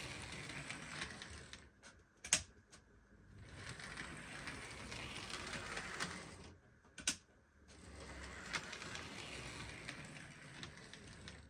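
Bachmann OO-gauge B1 model locomotive chassis running on the track, its motor and gears whirring steadily in three runs. It stops twice briefly, with a sharp click in each pause. The whirring is the repaired chassis running again after an axle fix.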